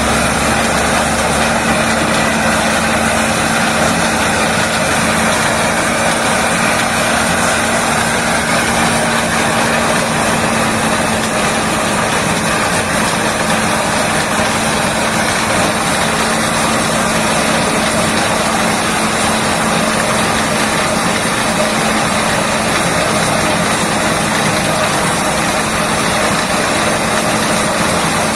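Engine-driven corn sheller running steadily: a loud, continuous machine noise with a steady hum underneath, unchanging throughout.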